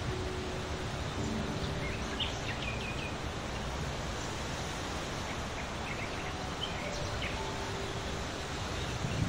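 A few faint, short, high bird chirps about two to three seconds in and again around six to seven seconds in, over a steady outdoor hiss.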